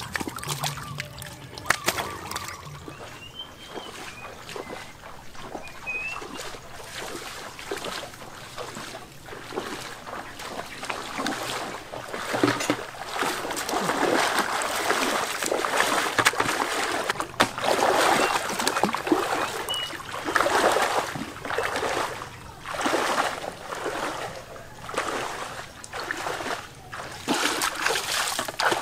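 Muddy water splashing and sloshing in irregular bursts as hands work through mud and shallow water to catch fish, louder and busier from about halfway.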